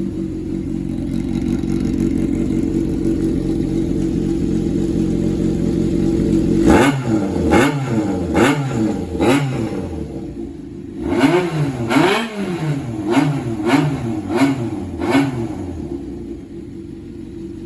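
Honda CBX400F inline-four engine through a modified Inomusha Bullet 2 silencer, held at a steady raised rev for about seven seconds. Then it is blipped quickly about ten times, each rev rising and dropping straight back, with a short lull midway, before settling toward idle near the end.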